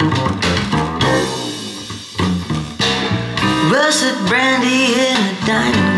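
A song with plucked guitar and bass played through a homemade 8-inch full-range paper-cone driver with an underhung neodymium motor and no surround, in a cardboard-box enclosure. A voice starts singing a little past halfway.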